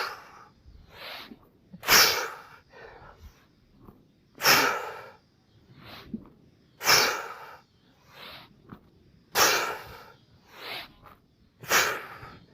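A person breathing hard through explosive push-ups: a sharp, forceful exhale about every two and a half seconds, six in all, each with a quieter breath in between.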